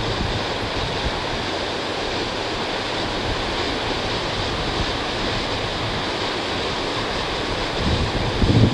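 Steady rush of sea surf and wind, with a gust buffeting the microphone near the end.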